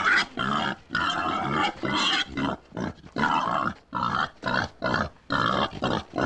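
Wild boars calling in a quick string of short, rough calls, about two to three a second.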